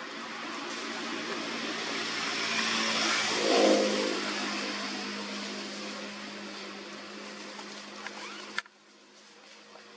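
A motor vehicle passing: a steady engine hum and road noise grow louder to a peak about three and a half seconds in, then fade away, and the sound cuts off abruptly near the end.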